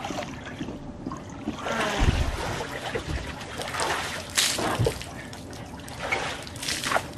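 Hot tub water splashing and sloshing as a person is hauled up out of the tub over its rim, in several uneven splashes.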